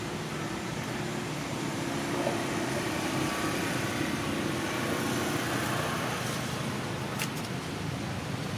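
Steady outdoor background noise with a low, engine-like hum, and one sharp click about seven seconds in.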